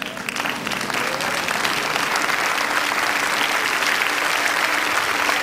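A large congregation applauding. The clapping builds over the first second or so, then holds steady and dense.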